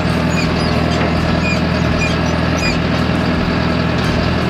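Tractor diesel engine running steadily as the tractor drives itself across a field, heard from inside the cab.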